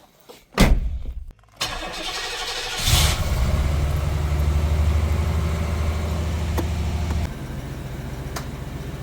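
A thump about half a second in, then an old Cadillac's engine cranking on the starter and catching about three seconds in. It settles into a steady fast idle that drops lower and quieter a little after seven seconds in.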